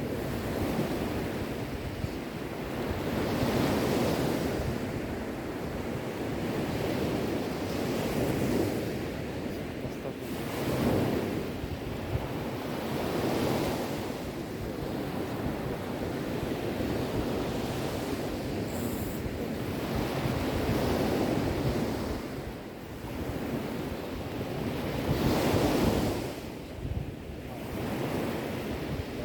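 Sea waves breaking and washing on a shore, swelling and ebbing every few seconds, with wind noise on the microphone.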